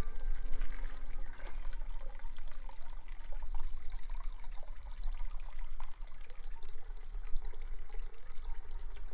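Water trickling and splashing, with a steady low rumble underneath.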